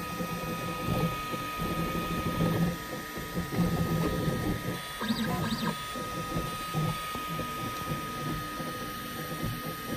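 Ultimaker 3 Extended 3D printer running: its motors whir in short, uneven moves, with two quick higher-pitched sweeps about halfway through. A steady high whine sits under them.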